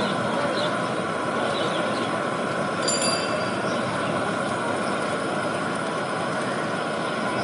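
Fuluri fritters deep-frying in a large iron kadai of oil: a steady sizzling hiss, with one metallic clink about three seconds in.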